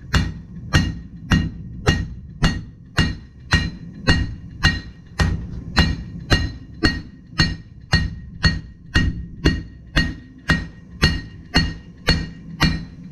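Blacksmith's hammer striking hot metal on an anvil in a steady rhythm, a little under two blows a second, each blow ringing briefly: the workpiece being flattened out.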